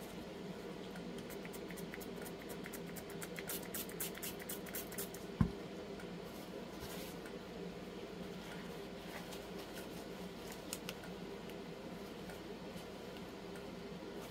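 Gloved hands cleaning out a small silicone mixing cup with a paper towel: faint rubbing and crinkling, with a run of small clicks and taps over the first five seconds and one low thump about five seconds in, over a steady low hum.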